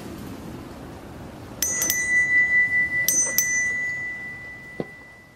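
Doorbell sound effect: a small bell struck twice in quick pairs, about one and a half seconds in and again about three seconds in, leaving a single high ringing tone that slowly fades, over a steady rushing background noise.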